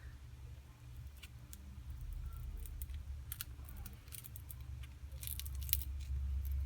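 Light scattered clicks and scrapes of pry tools working the edge of a Samsung Galaxy S7's glued back glass, loosening its adhesive, over a steady low hum. The clicks come thicker in the second half.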